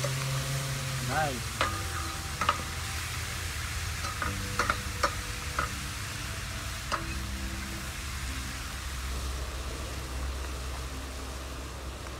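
Butter and curry sizzling in a pot while a spoon stirs them, with scattered sharp clicks of the spoon against the pot.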